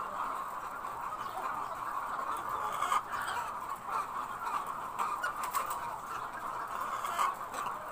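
A flock of caged chickens clucking: a steady, dense din of many birds together.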